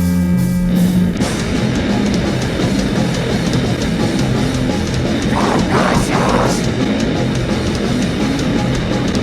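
Extreme metal band playing live: loud distorted guitars and fast drumming in a dense, steady wall of sound, after a held low tone cuts off about a second in.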